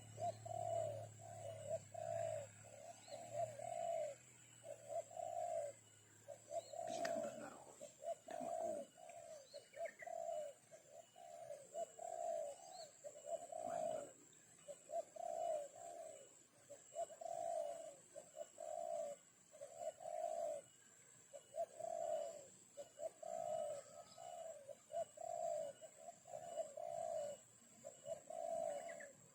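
A bird calling a long, steady series of low cooing notes, about one a second, used as a lure call. A few faint knocks come about seven to nine seconds in.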